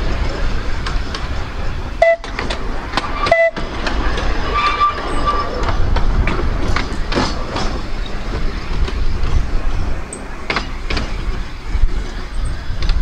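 Narrow-gauge tram running along its track, heard from on board: a steady rumble of wheels on rail with scattered clicks and knocks, and a few brief squeals in the first few seconds.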